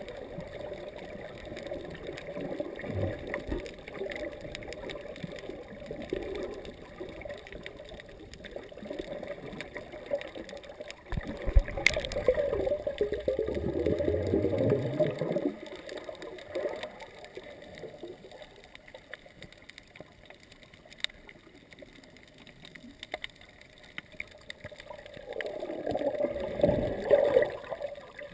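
Muffled underwater water noise picked up by a camera filming below the surface: a steady dull rush with gurgling, swelling louder about twelve seconds in and again near the end.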